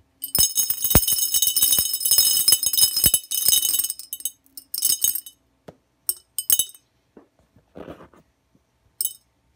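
Small rounded pebbles of gravel poured into an empty glass jar for a terrarium's drainage layer, clattering and clinking against the glass with a ringing tone for about three and a half seconds. A few shorter trickles of stones follow.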